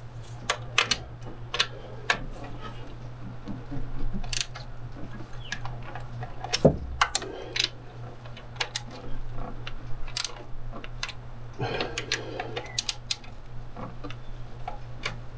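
Ratchet wrench clicking in short runs, with scattered sharp metal clinks, as the mounting bolts of a new secondary air switching valve are tightened. A steady low hum runs underneath.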